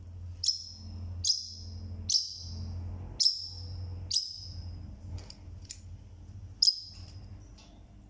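A parrotlet (Forpus) calling loudly: short, sharp, high-pitched calls, six loud ones at roughly one-second intervals with a few fainter ones between them.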